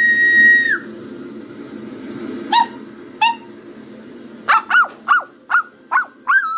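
A steady high whistle that ends with a drop in pitch just under a second in, then a puppy's high yelps: two single ones, then a quick run of six short yaps.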